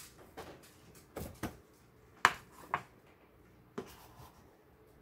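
Snap-on lid being pried off a plastic food-storage tub of granulated sugar: a series of sharp plastic clicks and knocks, the loudest a little over two seconds in. Near the end, a measuring cup is pushed into the sugar.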